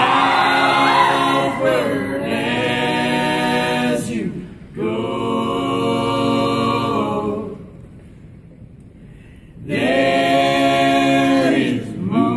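A group of men singing together in harmony, holding long chords in phrases of a few seconds each. There is a short break about four seconds in and a pause of about two seconds near two-thirds of the way through before they sing again.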